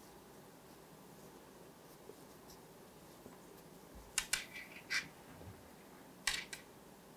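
Faint handling sounds of hand crocheting with a crochet hook in thick cotton cord: a quiet background broken by two short clusters of sharp little clicks, about four and six seconds in.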